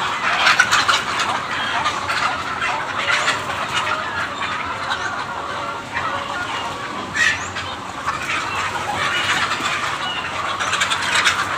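A large flock of laying hens clucking all together in a dense, overlapping chatter, with one louder call about seven seconds in.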